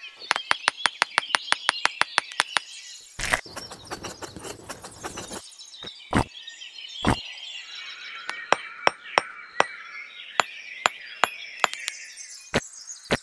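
Light, sharp clicks and taps of miniature clay bricks being set in wet mortar: a quick even run of clicks, then a scraping rustle for about two seconds, then scattered single taps. Birds chirp steadily behind.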